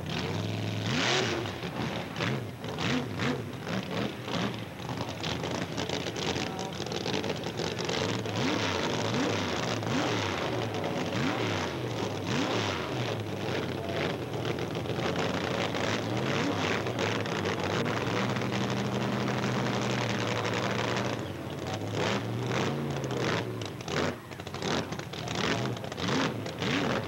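Sand drag race cars' engines running and revving, their pitch climbing and falling again and again, with a steadier low drone a little past two-thirds of the way in.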